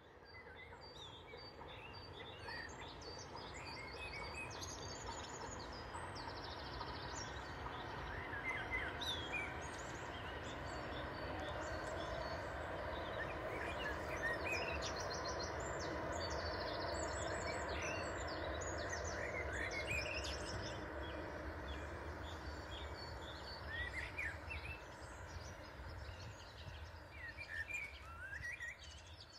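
ICE high-speed train passing on the far side of a wide river: a distant rushing that swells over about fifteen seconds and then slowly fades. Small birds chirp throughout.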